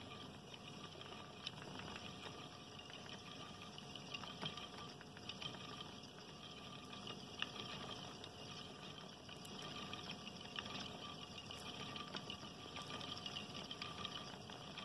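Ashford Traditional spinning wheel running: a faint steady whir from the spinning flyer and bobbin as the yarn winds on, with scattered light ticks.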